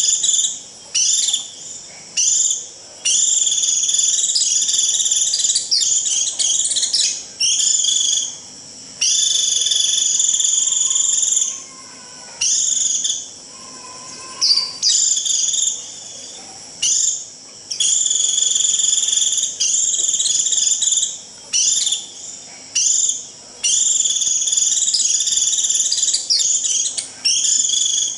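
White-eye giving its shrill 'rít' flock-calling call, used to draw in flocks: high, piercing notes held for one to three seconds at a time, repeated with short breaks.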